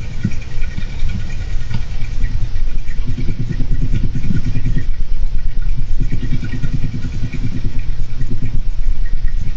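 A person snoring: a low, fluttering rattle that swells with each breath, the stronger snores coming about every three seconds.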